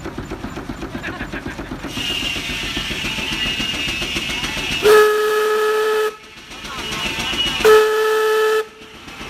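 Steam whistle on a 1924 Frick portable steam engine blowing two blasts of a steady pitch, each about a second long, the first about five seconds in and the second near the end. Before them the engine runs with quick regular beats, which give way about two seconds in to a steady steam hiss that carries on around the blasts.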